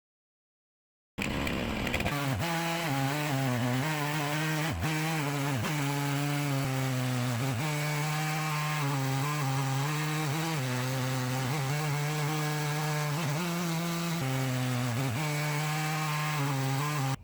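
Stihl 660 two-stroke chainsaw in an Alaskan chainsaw mill, running at full throttle while ripping a slab lengthwise through an ash log. The engine note dips and recovers several times as the saw loads up in the cut. It starts abruptly about a second in.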